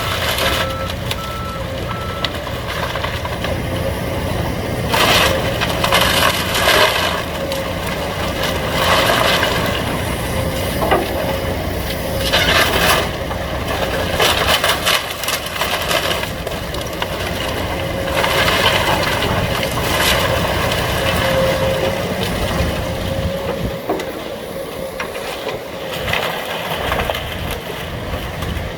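Excavator diesel engine running steadily under a faint steady whine, while house debris and timber is crushed and broken in a string of crunching, cracking bursts, several seconds apart.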